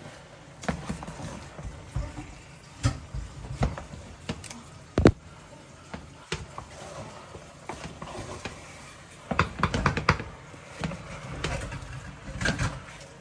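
Irregular knocks and clinks of kitchen utensils and cookware during cooking, with a quick run of clatter about nine to ten seconds in.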